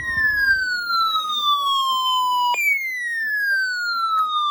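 Electronic siren-style warning alarm: a tone that falls steadily over about three seconds, jumps back up and falls again. A steady alert tone stops about half a second in.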